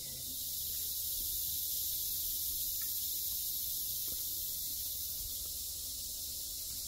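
Steady high-pitched buzzing of tropical insects, a continuous chorus that swells slightly about a second in and then holds.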